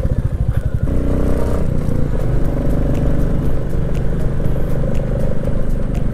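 Motorcycle engine running while riding, with wind noise on the microphone. The engine's sound changes about a second in, then runs steadily.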